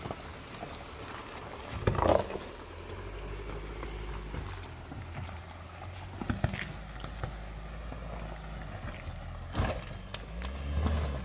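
Ford Endeavour diesel SUV crawling slowly over a loose rocky track: a low engine rumble, with stones crunching and a few sharp knocks from rocks under the tyres, the loudest about two seconds in.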